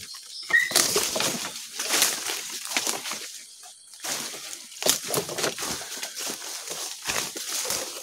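Footsteps crunching and rustling through dry bamboo leaf litter, with the walker brushing past leaves and stems, in an uneven walking rhythm.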